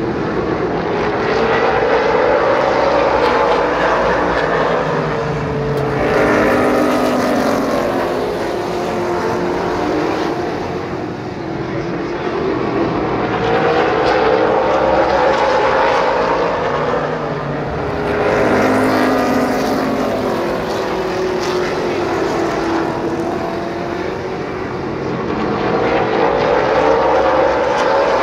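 A pack of stock cars running laps on a paved oval, their V8 engines swelling and fading several times as the field passes, the engine note bending up and then down with each pass.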